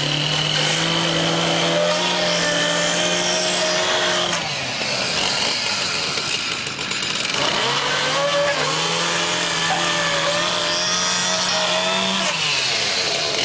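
Two-stroke chainsaw running at high revs, its pitch sinking as the throttle eases about four seconds in, picking up again about three seconds later and dropping once more near the end.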